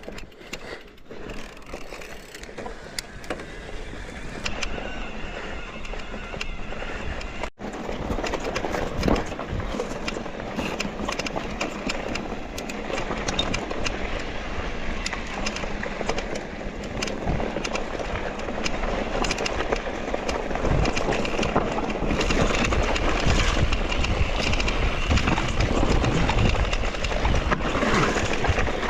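Electric mountain bike ridden over a rough dirt trail: tyres rolling over dirt and stones with a constant stream of small knocks and rattles from the bike, and wind rushing over the microphone. It gets louder from about 22 seconds in.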